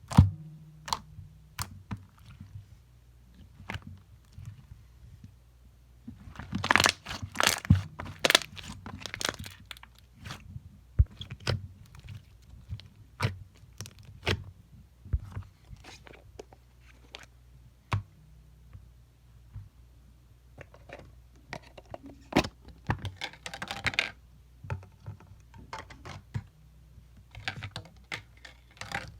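Slime containers and packaging from a slime-shop box being handled, with no speech. Scattered sharp clicks and taps run throughout, beginning with a loud knock. Dense stretches of crinkling and crunching come about a quarter of the way in and again past three quarters of the way through.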